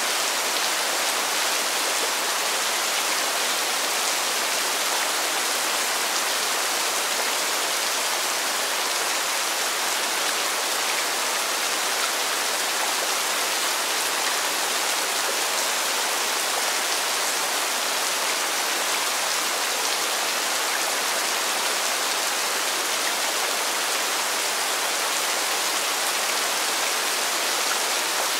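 Steady rain falling, a dense, even hiss of many drops with no thunder.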